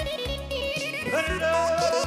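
Instrumental passage of a Balkan folk song: a woodwind-like lead melody with sliding, ornamented notes over a pulsing bass line and beat.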